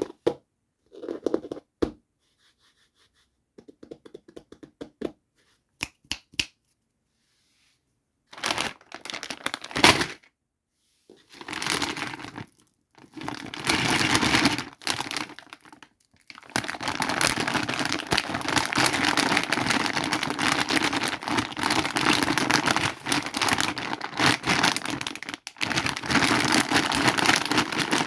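A doll set's packaging is unboxed by hand. First come scattered light clicks and taps. From about eight seconds in there is crinkling and tearing of the wrapping, which runs almost without a break through the second half.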